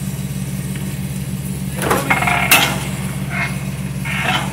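An engine idles steadily with an even low pulse. About two seconds in comes a short run of metal clanks and rattles with one sharp clank, from the engine block being worked loose and lifted on the engine hoist.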